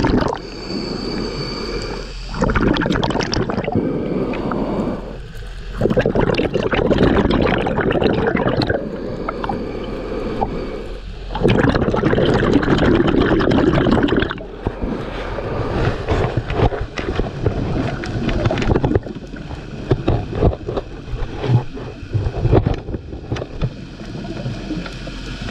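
A scuba diver's breathing heard underwater: bursts of bubbly, gurgling exhalation lasting two to three seconds, repeating every four to five seconds with quieter gaps between them. Scattered short clicks and knocks come in the second half.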